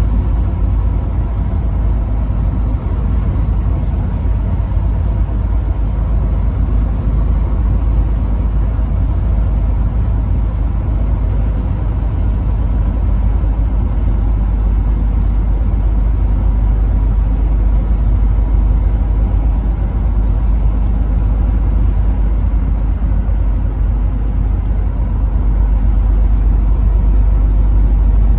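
Truck driving on the road: a steady low engine and road rumble that grows a little louder near the end.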